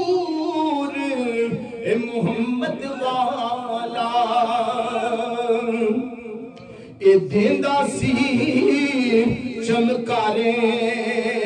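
A man recites a Punjabi naat unaccompanied, singing long, wavering held notes. Near the middle he drops away for a breath and comes back in loudly about a second later.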